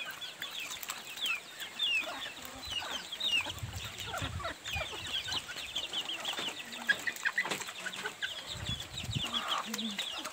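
Chickens clucking and chirping, a busy run of short, high, falling chirps, with a few low thuds mixed in.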